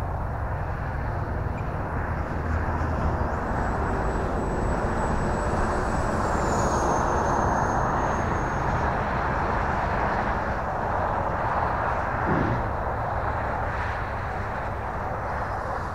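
Electric ducted-fan RC jet (E-flite Viper 70mm on a 6S battery) flying past, a steady rushing fan noise that swells toward the middle, with a thin high whine that starts a few seconds in, drops slightly in pitch around the middle and fades out.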